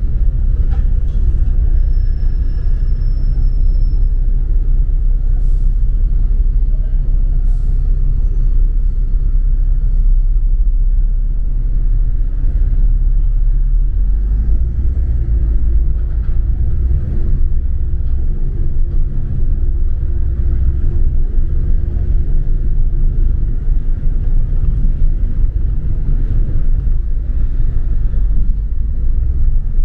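Double-decker bus heard from on board as it drives along: a steady low rumble of engine and road noise. A faint steady hum joins for several seconds in the second half.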